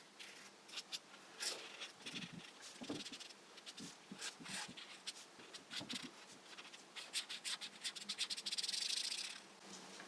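Faint scratchy strokes of colouring in on paper, turning into quick dense scribbling about seven seconds in for a couple of seconds.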